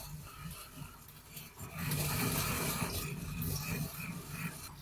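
Sesame seeds being ground with a wooden pestle in a suribachi, a ridged Japanese mortar: rhythmic scraping and crunching that grows louder about two seconds in.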